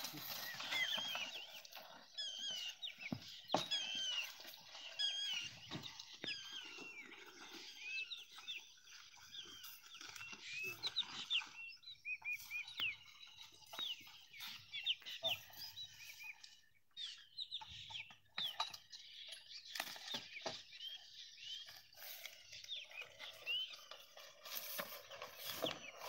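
Birds calling over and over, many short high chirps overlapping, thinning out around the middle, with a few scattered knocks.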